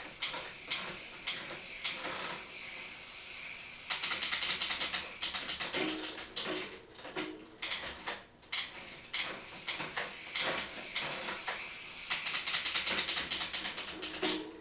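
Chain running over a Shimano CUES U6000 11-speed Linkglide drivetrain as the crank is spun by hand, with bursts of rapid clicking and rattling alternating with stretches of steady chain noise. The chain is being shifted several cogs at once toward the smaller cogs, and it moves only as it reaches each shift ramp, which is why the downshifts are slow by design.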